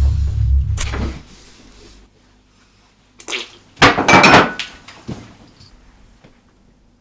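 Kitchen-knife stabbing: a rapid run of dull, heavy thuds that stops about a second in. About three seconds later a short knock and then a loud clatter against the plate and counter as a stabbed body slumps onto them.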